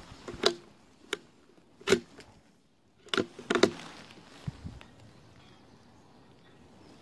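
A series of sharp clicks and knocks from the bolt of a TOZ-8M single-shot .22 rifle being handled, as the shooter finds it unchambered and loads a round. The clicks come in several separate strokes over the first few seconds and stop after about four and a half seconds.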